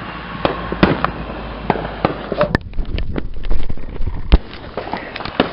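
Firecrackers and fireworks going off irregularly: a string of sharp bangs, some faint and some loud, the loudest about four seconds in.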